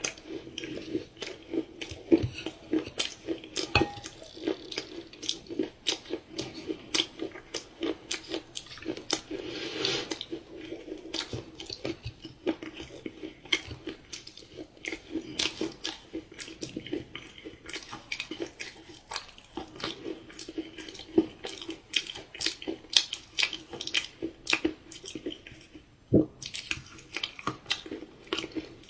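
Close-miked chewing of dark chocolate pie: a steady run of wet, sticky mouth clicks and smacks, several a second.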